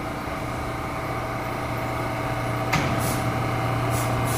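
New York City subway train giving a steady electrical hum with a low drone. About two and a half seconds in there is a sharp clunk, followed by a few short, high hisses.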